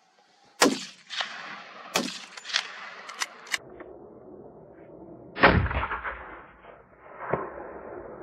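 A string of about eight gunshots at uneven spacing, the loudest and deepest about five seconds in, each trailing off in echo.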